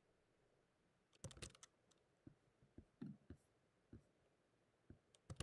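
Laptop keyboard keys and clicks tapped in an irregular series, starting about a second in after near silence.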